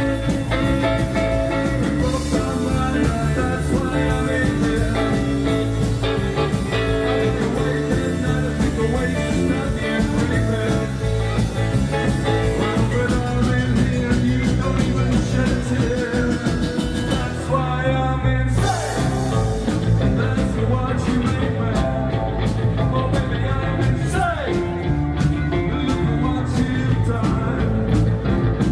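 Rock and roll band playing loudly live, with a brief dip in the sound about two-thirds of the way through.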